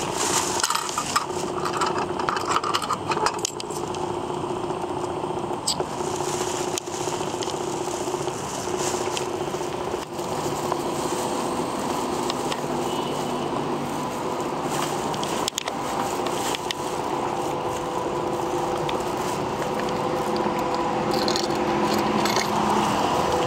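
Clicks and rattles at a vending machine's coin slot and coin return, busiest in the first few seconds, with single clicks later, over a steady hum.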